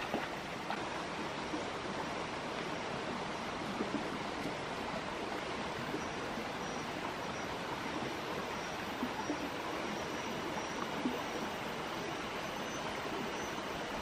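Shallow rocky stream flowing steadily over stones, with a few faint knocks and splashes now and then.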